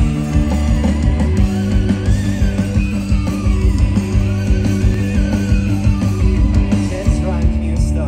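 Live rock band playing loud through the stage PA: electric guitars over a steady drum beat.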